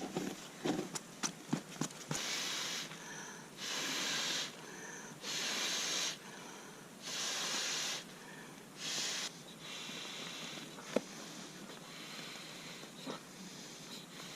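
A person breathing out hard in five long, even breaths, one about every second and a half to two seconds, with shorter, thinner intakes between them. A few sharp handling clicks come first, and a softer, steady hiss follows.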